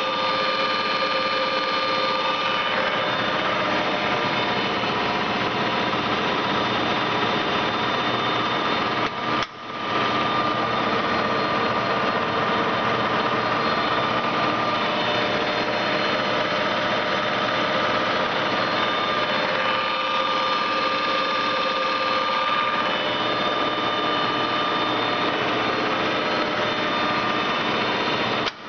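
Semco lathe running steadily under power, with a steady gear whine over the machine noise. There is a short break in the sound about nine and a half seconds in.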